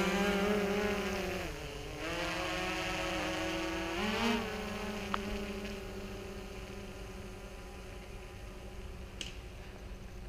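DJI Phantom 3 quadcopter's propellers humming. The pitch dips about a second and a half in, rises again about four seconds in, then holds steady as the hum slowly fades while the drone climbs away.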